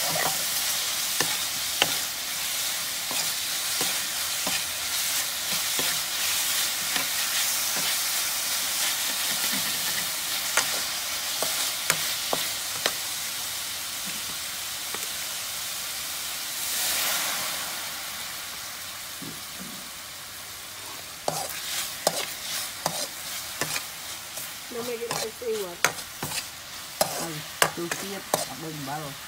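Sliced meat sizzling in a steel wok while a metal ladle stirs it, scraping and clinking against the pan. The sizzle is strongest in the first half, swells briefly, then eases. Over the last several seconds the ladle's scrapes and clinks come more often.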